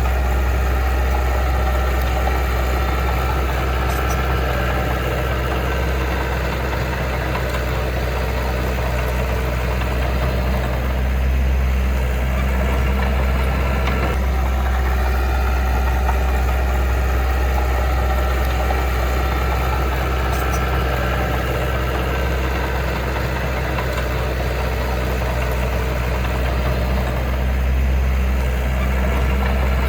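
Heavy diesel engine of earthmoving equipment running steadily with a deep, continuous rumble, swelling slightly a couple of times.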